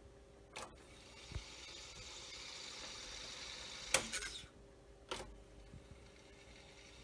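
Akai X-201D reel-to-reel tape deck being switched between wind modes: sharp mechanical clicks of the function lever about half a second in, near four seconds and just after five, with a steady hiss of the reels fast-winding tape between them.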